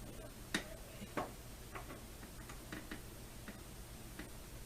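Irregular light clicks and taps of plastic being handled as a cable is connected to the TV, two sharper clicks in the first second and a half, then fainter ones spread out.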